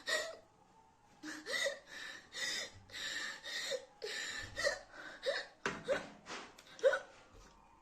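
A woman gasping for breath with repeated hiccups, a short sharp vocal catch about once a second between ragged noisy breaths, after eating an extremely hot chili chip.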